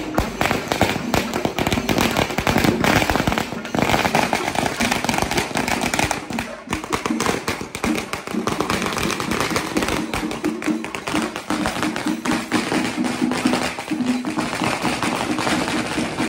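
Dense, rapid drumming of a tiger-dance drum band, a steady crackle of sharp strokes, with voices mixed in.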